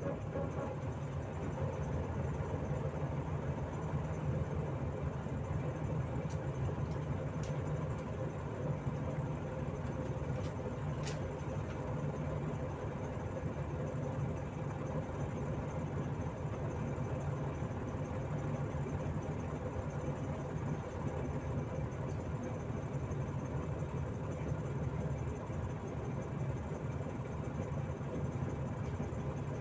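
Volzhanin-5270 city bus heard from inside the passenger cabin while under way: a steady low drone of its diesel engine mixed with road noise. A few faint high clicks sound about a third of the way in.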